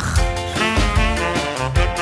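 Upbeat background music with a bass line moving in a steady rhythm.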